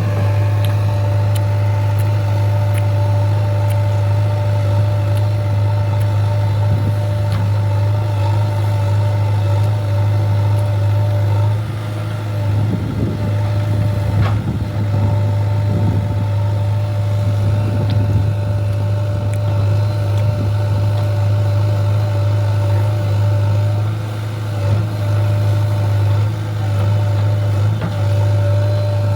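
JCB 3DX backhoe loader's diesel engine running steadily under a working load, a deep drone with a steady higher whine over it, dipping briefly now and then.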